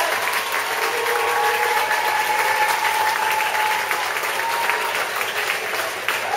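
Audience applauding, dense clapping with a few long cheering calls held over it.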